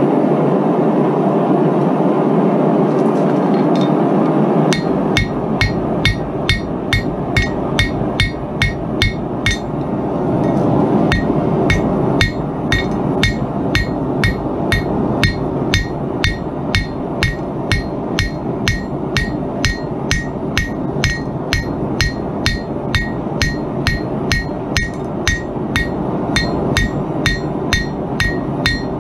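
Hammer blows on a hot mokume gane billet on an anvil, about two a second, each with a metallic ring. They start about five seconds in, over the steady rushing of the forge.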